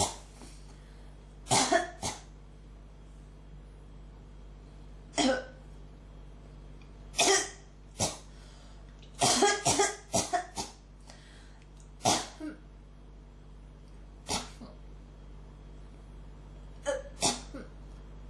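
A person coughing repeatedly, a cough that won't stop: single coughs and quick runs of two to six, coming every one to three seconds.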